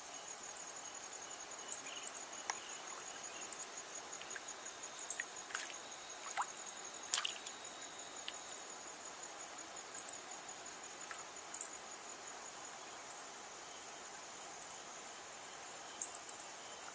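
Insects droning in a high, steady chorus, with a faster pulsing trill beneath it and scattered faint ticks and short chirps.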